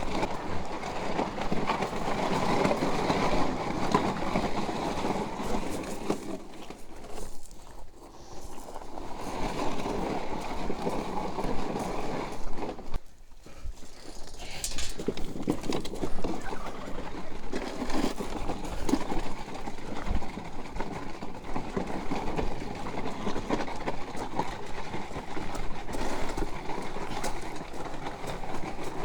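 Garden cart loaded with plastic jugs of washer fluid being pulled along rough ground: a continuous rattling clatter of wheels and knocking jugs, easing off briefly twice.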